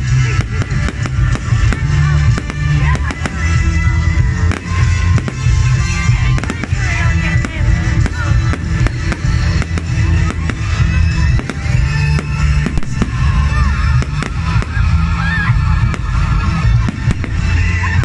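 Fireworks exploding in many sharp bangs and crackles, layered over loud music with a heavy, pulsing bass.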